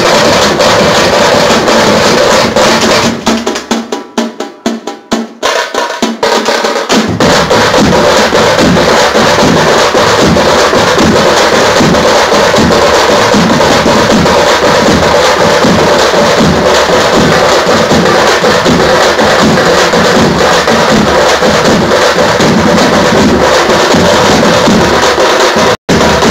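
A street troupe of tamte frame drums and large bass drums playing together in a loud, dense, fast rhythm. About three seconds in, the deep drums drop out for a short break of separate frame-drum strokes, and the full band crashes back in around seven seconds. The sound cuts out for an instant near the end.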